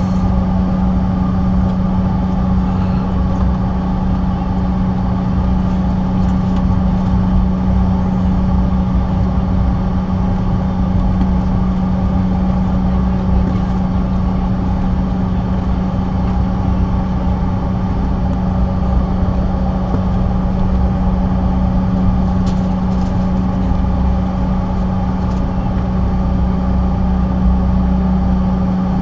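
Cabin noise of a CRJ700 regional jet taxiing, its rear-mounted turbofans at idle: a steady drone with a strong low hum and rumble underneath.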